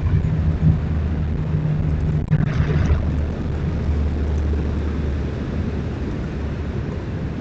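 A distant engine's low, steady drone, easing off slightly toward the end, with a brief hiss about two and a half seconds in.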